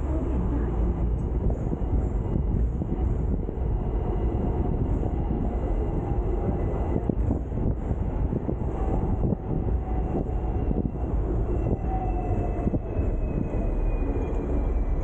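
Hong Kong double-decker tram running along its rails, heard from on board: a steady rumble with constant rattling from the car and wheels on the track. A faint thin whine slowly falls in pitch over the last few seconds.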